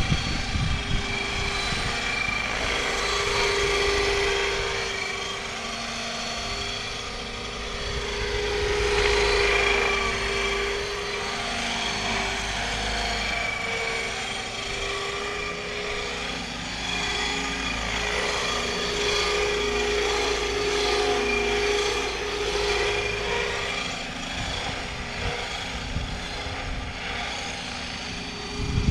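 Radio-controlled scale MD 520 helicopter in flight: its rotor and motor run together with the scale turbine whine played by an onboard Aerosound sound module. The steady whine grows louder and softer as the model flies nearer and farther away.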